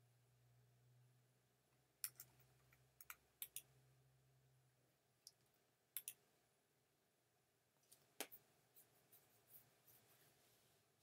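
Faint, scattered clicks of a computer mouse and keyboard keys, a few sharp ones close together and then a run of lighter ticks near the end. A faint low hum stops about halfway through.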